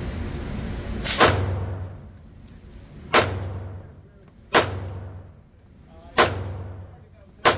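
Five single shots from an HK VP9 9mm pistol with a compensator, fired at a slow, even pace about one and a half seconds apart, each with a short echoing tail.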